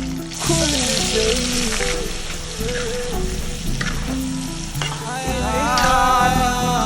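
Food sizzling in a hot frying pan while being stirred. The loud sizzle fades after about three seconds, leaving background music with a melody and steady bass.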